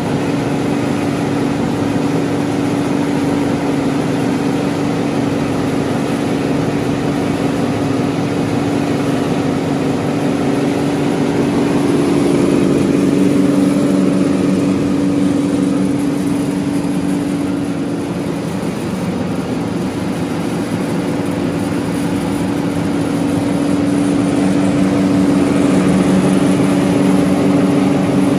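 Timesavers 137-1HP75 wide belt sander running with no workpiece: a steady motor and belt hum with a strong low tone, swelling slightly a third of the way in and again near the end.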